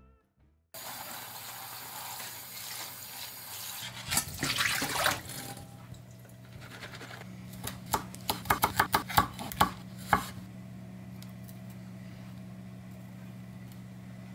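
Tap water running, with a brief burst of louder splashing as the shishito peppers are rinsed. About eight seconds in comes a quick run of a dozen or so sharp knife taps on a wooden cutting board as the pepper stems are cut off. A low steady hum sits underneath.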